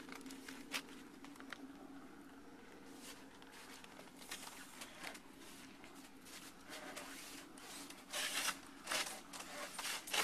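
Scattered scrapes, rustles and clicks of hands working on a curved sheet mold, with a few louder scraping strokes about eight to nine seconds in, over a steady low hum.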